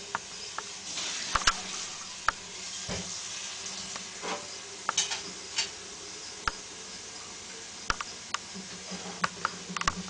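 Scattered light clicks and short crackles over a steady hiss: wood-chip bedding shifting as a ball python coils around a mouse it is constricting.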